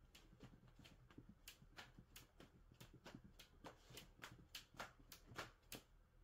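Faint, irregular scratches and scuffs of a cat's claws and paws on a fabric quilt as it scrabbles and pounces, about three a second, loudest near the end.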